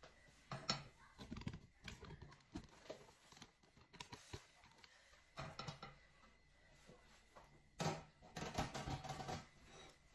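Light kitchen handling sounds: a clink as a stainless steel pot lid is lifted off about a second in, then scattered soft knocks and rustles, with a sharper knock near the end.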